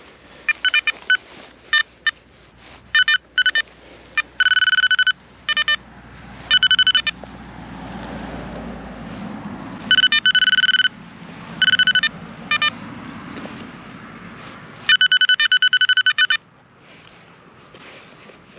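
Metal detector sounding over buried metal: repeated bursts of the same high-pitched tone, some short chirps and some longer strings of rapid pulsing beeps, each the signal of a metal target in the ground.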